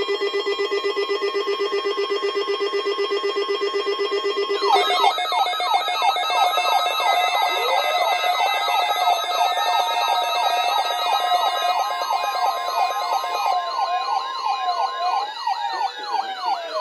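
Several weather alert receivers set off by a NOAA Weather Radio weekly test, sounding their alarms together. A rapidly pulsing beep tone comes first. About five seconds in, electronic sirens join, wailing and warbling over one another, with one slower siren rising in pitch and then falling away near the end.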